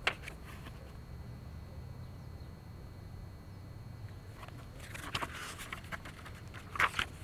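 Faint low outdoor rumble, with a click at the start and a few soft rustles and taps about five and seven seconds in as a hardcover picture book is held up and handled.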